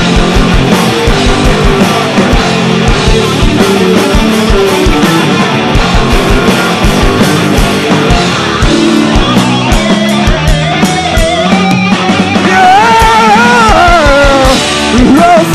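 Live rock band playing loud, with electric guitars and a fast, steady kick drum beat. About twelve seconds in, a wavering melodic line, voice or lead guitar, comes in over the top.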